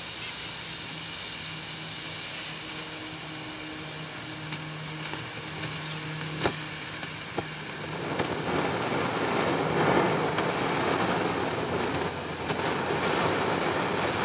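A morning glory firework burning with a steady crackling, sputtering noise as it throws sparks. A couple of sharp pops come around six to seven seconds in, and the crackle grows louder about eight seconds in.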